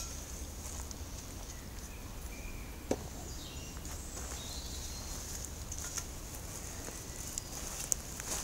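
Quiet outdoor background: a steady high hiss with a few faint bird calls, and a single light knock about three seconds in.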